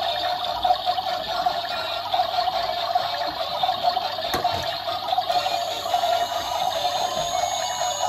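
Several toy washing machines running at once: a steady whirring churn from their small drum motors. There is a single knock about four and a half seconds in.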